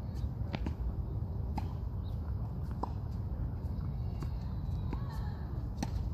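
Tennis balls being struck with rackets and bouncing on a hard court: a few sharp pops, irregularly spaced, over a steady low rumble.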